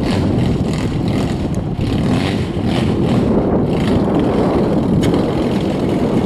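1992 Buick Roadmaster's V8 engine running steadily after being started by its factory remote start, mixed with steady wind noise on the microphone.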